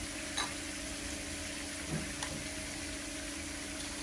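Air fryer running with a steady hiss and low hum, with a few faint clicks.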